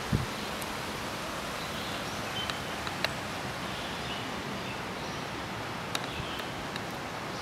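Steady outdoor ambient hiss high above a wooded creek, with faint high bird chirps and a few sharp clicks, the first with a low thump just after the start.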